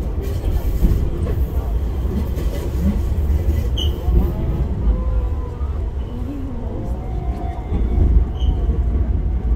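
Enoshima Electric Railway 300-series electric train running along the track, heard from inside the front car: a steady low rumble of wheels and motors.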